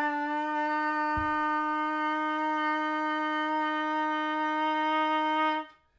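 Trumpet mouthpiece and leadpipe, played with the tuning slide removed, sounding one long steady buzzed note. The note scoops up slightly at the start and stops shortly before the end. It has a weird tone that doesn't sound like a trumpet.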